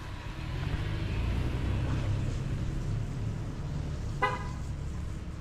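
A motor vehicle passing with a low engine rumble, and a single short car-horn toot about four seconds in.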